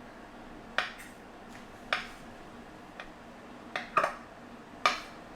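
A blade cutting ropes of tapioca dough into small pieces, tapping sharply on the work surface with each cut, roughly once a second.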